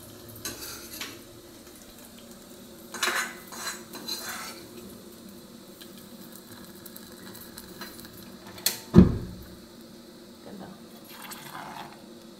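A steel spoon scraping and clinking against a clay curry pot as fried mustard-seed tempering is stirred into the curry, with one much louder knock about nine seconds in.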